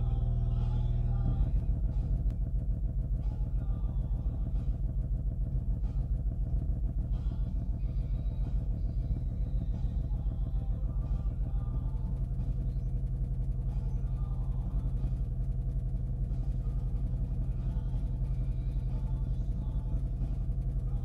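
Music played loud through an Edifier S760D subwoofer: deep, steady bass fills the sound, and the song's higher parts are faint above it.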